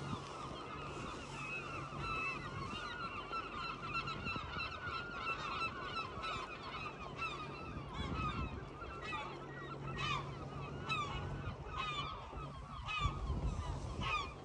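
A flock of birds calling, many short calls overlapping without a break, with a faint low hum that comes and goes underneath.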